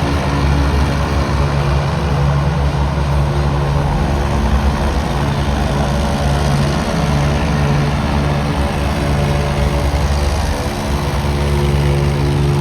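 Engines of stunt watercraft running loudly across the show's water, a steady low drone that shifts pitch a few times as they throttle up and down.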